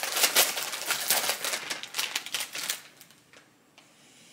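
Plastic candy bag crinkling and rustling as it is handled, a dense run of crackles that stops about three seconds in.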